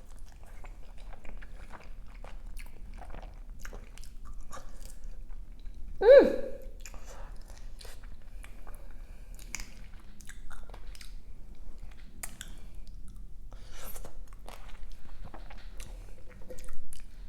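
Close-miked biting and chewing of crispy fried chicken, with crunchy crackles throughout. A brief pitched sound falling in pitch about six seconds in is the loudest moment.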